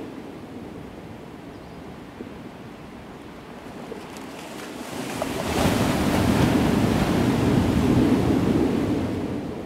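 Small surf waves breaking and washing over a flat sandy beach, mixed with wind on the microphone. The noise swells much louder a little past halfway and eases off near the end.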